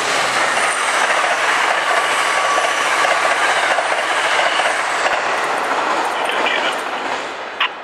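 Passenger train's silver coaches rushing past at speed, a loud steady rush of wheels on the rails that fades away after the last car clears, about six to seven seconds in.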